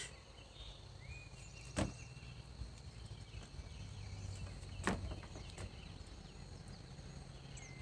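Quiet lakeside ambience with faint, scattered bird chirps, broken by two sharp knocks about two and five seconds in.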